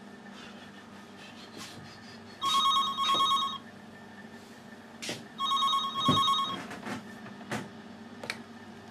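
Telephone ringing twice, each ring a trilling double burst about a second long, the second beginning about three seconds after the first. A faint steady hum runs underneath.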